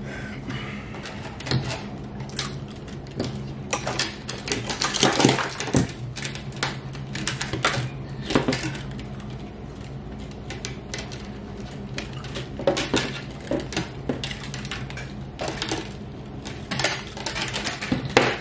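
Irregular clicks, knocks and light clattering of a metal-cased fluorescent light ballast and its wire leads being handled and set down on a workbench, with a steady low hum underneath.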